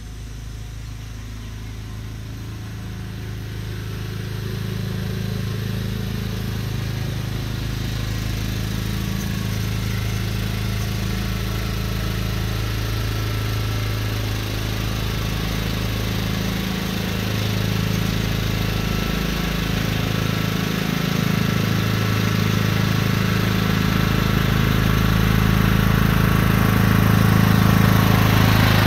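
John Deere riding lawn tractor's engine running steadily, growing louder as the tractor drives up close.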